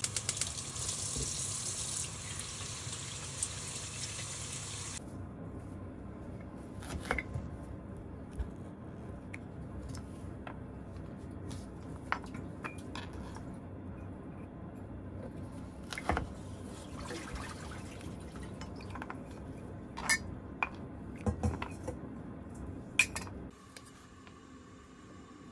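Tap water running for the first few seconds. After that come scattered clicks and light knocks of a metal vegetable cutter pressing flower shapes out of carrot slices on a cutting board.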